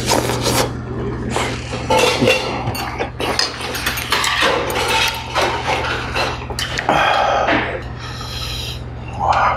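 Close-miked eating: chewing and slurping mouthfuls of spicy stew, with metal tongs and chopsticks clinking and scraping in a stainless steel pot, over a steady low hum.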